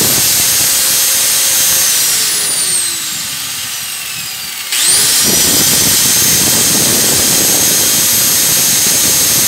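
Black & Decker angle grinder running unloaded with no disc fitted. It is switched off about two seconds in and winds down, then is switched back on about five seconds in, spins up and runs steadily. The grinder had failed to start and now starts and runs after repair.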